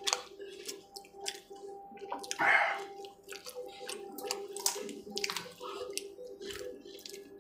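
Close-up wet chewing and lip-smacking of a man eating spicy chicken liver bhuna and roast chicken leg by hand, many small wet clicks and squelches, with one louder, longer noisy burst about two and a half seconds in.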